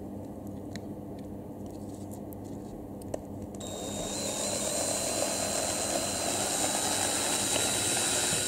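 Small electric drill starting about three and a half seconds in and running with a steady high whine as it bores a small ventilation hole through the action camera's plastic casing, then cutting off abruptly near the end. Before it starts there is only a low steady hum and a few faint clicks.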